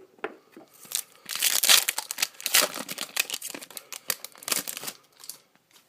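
Hockey card pack wrapper being torn open and crinkled in the hands, a run of crackling rustles from about one to five seconds in.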